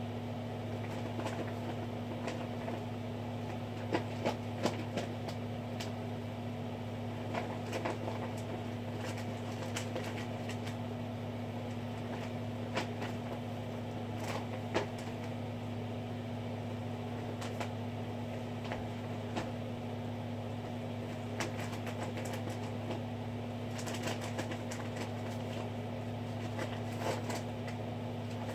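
A steady low electrical hum, with scattered faint short clicks, a few of them in quick clusters.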